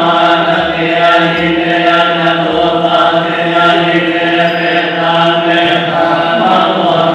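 A group of Thai Buddhist monks chanting Pali in unison, many men's voices held on a steady low monotone.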